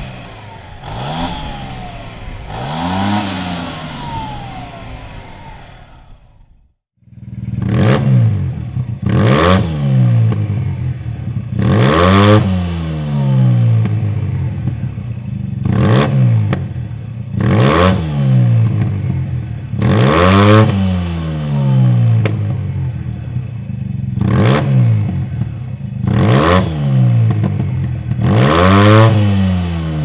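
Yamaha TMax 560's parallel-twin engine revved from idle in short blips, each rising and falling. A few softer revs come first, then after a brief break about seven seconds in, a run of louder blips about every two to three seconds.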